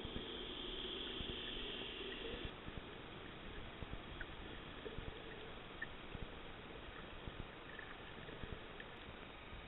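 Underwater ambience picked up by a camera in shallow water: a steady hiss with scattered faint clicks and crackles. The hiss drops a little about two and a half seconds in.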